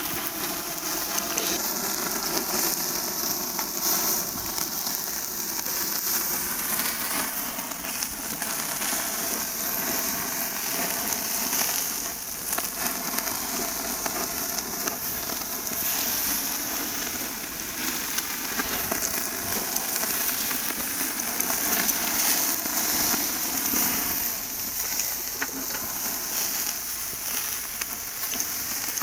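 Duck meat sizzling over a charcoal fire, with a dense, steady crackle and hiss of fat spitting on the coals.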